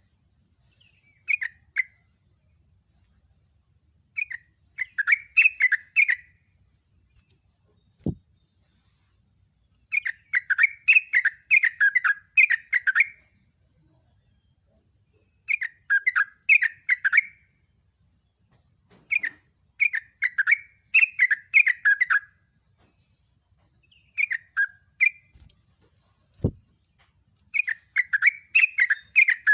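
Yellow-vented bulbul (trucuk) singing: clusters of rapid chattering notes, each one to three seconds long, repeated every few seconds. A faint steady high-pitched tone runs underneath, with two single clicks.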